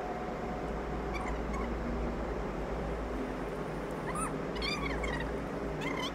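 Short, pitched animal calls, each rising and falling in pitch, heard a few times, with two close together about four seconds in, over a steady low hum.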